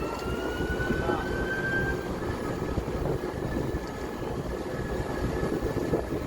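A moving vehicle's steady rumble, with a thin high tone that rises slowly over the first two seconds and then carries on faintly.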